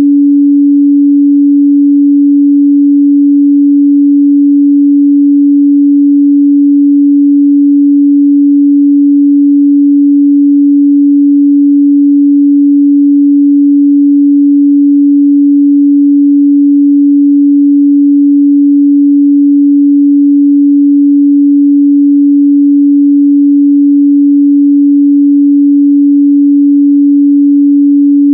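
Steady pure 285 Hz sine-wave test tone, a single unchanging loud hum in the midrange, used for checking speaker and headphone response.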